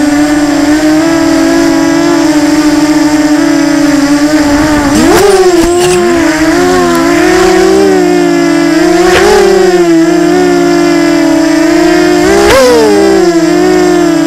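An FPV quadcopter's motors and propellers whining, heard from the camera on board. The pitch holds fairly steady, then swings sharply up and down as the throttle changes: about five seconds in, again near nine seconds and near twelve and a half seconds. A few sharp clicks come around five to six seconds in.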